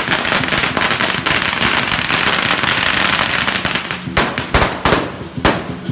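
A string of firecrackers going off in a rapid, continuous crackle, thinning about four seconds in to a handful of separate loud bangs.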